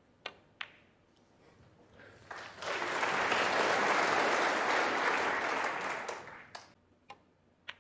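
Two sharp clicks of snooker balls, the cue tip meeting the cue ball and the cue ball striking an object ball, then audience applause for the pot that swells for a few seconds and fades. Two more light ball clicks near the end.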